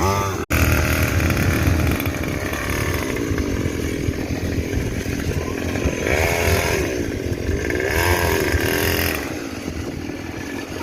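A 50cc mini moto's small engine runs continuously. It is revved up and let back down twice in the second half. The sound cuts out for an instant about half a second in.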